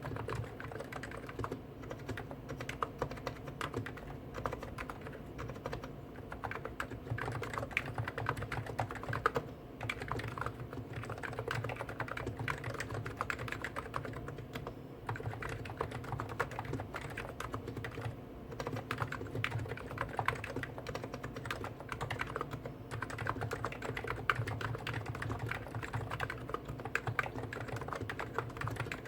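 Continuous fast typing on two Hansung electrostatic capacitive keyboards at once, a GTune CHF4 Snow White with 50 g switches and a GTune CHF7 OfficeMaster with 55 g switches: a dense run of overlapping keystrokes with no pause.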